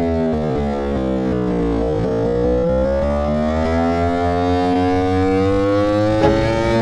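Yamaha R1 sportbike's inline-four engine running at high revs, its pitch easing down over the first two seconds and then climbing steadily as the bike accelerates.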